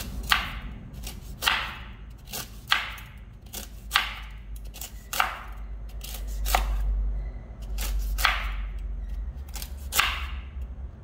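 Knife chopping noni fruit, a steady series of sharp chops about once a second.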